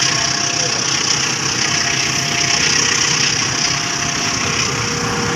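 Container freight wagons rolling past close by: the steady rolling noise of steel wheels on the rails, with a steady high hiss over it.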